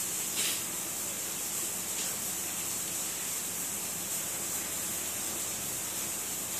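Steady background hiss, with a faint click about half a second in.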